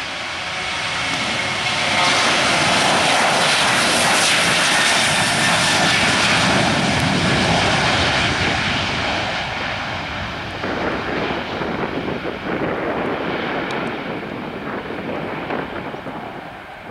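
Boeing 737-800 airliner's two CFM56-7B turbofan engines at takeoff thrust during the takeoff roll. The loud jet noise swells about two seconds in as the aircraft passes, stays loudest for several seconds, then fades steadily as it rolls away down the runway.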